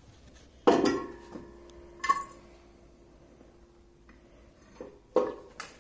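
Heavy steel Ursus tractor trailer hitch set down on a concrete floor: a clank about half a second in with a metallic ring that hangs on for about three seconds, a second sharper clank around two seconds in, and another knock near the end.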